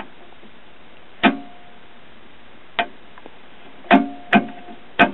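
Five sharp clicks at uneven intervals from a Heathkit C-2 capacitor tester being worked, each followed by a short metallic ring.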